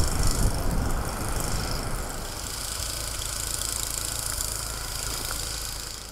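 An engine running steadily under a hiss. It is loudest at the very start, then holds steady, and cuts off just before the end.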